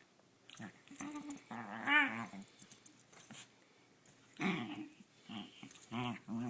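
Pet dog making a string of short, funny little vocal noises during play, about five in all with pauses between them, the one about two seconds in wavering in pitch.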